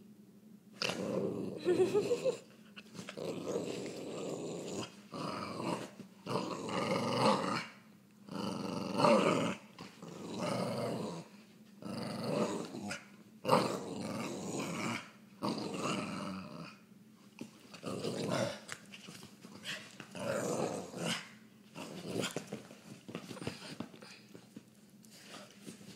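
A dog play-growling while mouthing and tugging a rope toy, in a string of rough growls about a second long each. They are loudest through the first half and grow shorter and softer toward the end.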